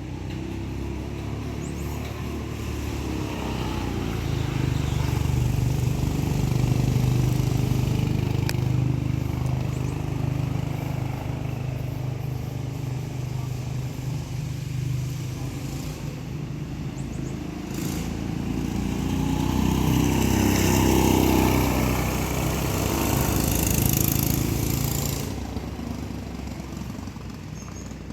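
A motor vehicle's engine running close by. It grows louder about four seconds in, rises and falls in pitch and is loudest around twenty seconds in, then drops away a few seconds before the end.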